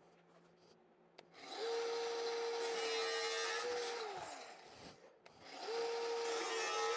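Angle grinder with a cut-off wheel run in two short bursts, each spinning up, cutting and winding down, nipping the corners off a steel side panel for the welds.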